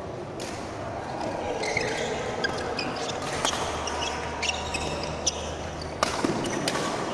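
Badminton rally: irregular sharp racket hits on the shuttlecock and short squeaks of shoes on the court floor, over a hall's background hubbub.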